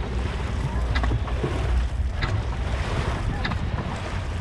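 Dragon boat out on the water: wind buffeting the microphone over a wash of water noise, with a short sharp stroke sound recurring about every second and a quarter.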